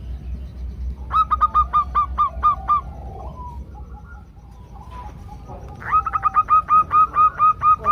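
Female zebra doves calling: two rapid series of about ten short, evenly spaced notes, at roughly five or six a second. One series comes about a second in and the other near the end, with fainter calls between them and a low hum underneath.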